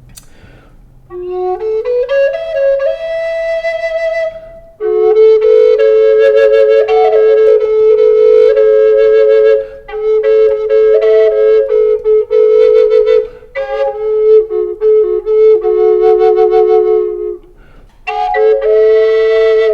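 Native American-style double flute of Spanish cedar in F-sharp minor playing: first a single melody line, then from about five seconds in a steady drone note joins under the melody, in several phrases with short pauses between them. The drone side has its bottom finger hole uncovered, setting the drone to a higher note than the root F-sharp.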